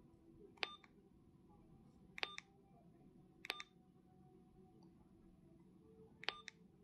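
Keypad tones of a T12 dual-mode 4G-LTE/UHF walkie-talkie: four short beeps, each with a button click, as its menu keys are pressed one at a time.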